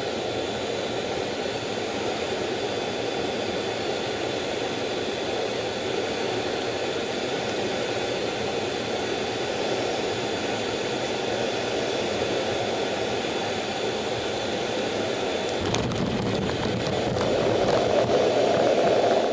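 Inside the cockpit of an F/A-18F Super Hornet, its twin F414 turbofans and the airflow make a steady rush with a thin high whine. About 16 s in, a cluster of sharp knocks comes as the jet lands on the carrier, and the engine noise then swells louder.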